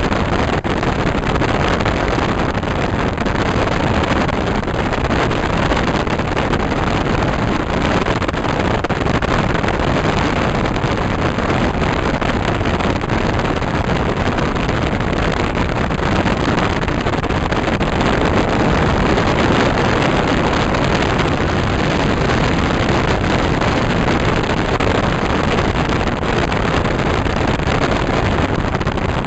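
Steady wind and road rush from a car moving at highway speed, loud and even, with wind buffeting the microphone.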